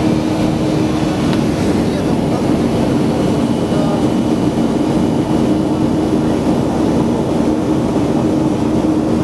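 Steady cabin noise of a Boeing 737-500 in flight, heard at a window seat beside the wing engine: the CFM56-3 turbofan's steady drone with a low hum over the rush of air.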